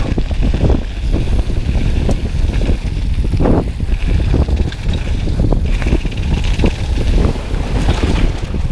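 Wind buffeting an action camera's microphone over the rumble of mountain bike tyres on a loose gravel trail at speed, with many short rattles and knocks from the bike.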